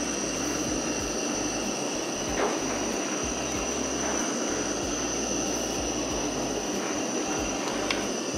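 Butane kitchen torch burning steadily with a rushing hiss as its flame plays on hickory wood chips to light them.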